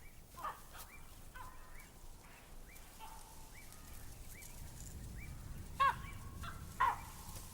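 Wild birds calling: a series of short rising calls about once a second, with louder, harsher calls about half a second in and twice near the end. A low rumble builds underneath in the second half.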